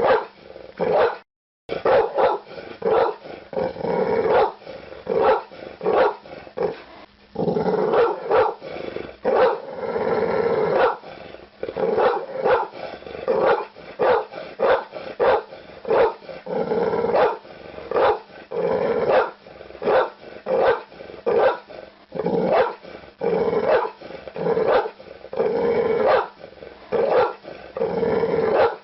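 Pit bull barking over and over, about one to two barks a second, with a brief break of silence about a second and a half in.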